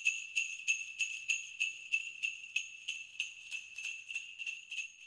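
Sleigh bells shaken in a steady rhythm, about three shakes a second, fading out near the end.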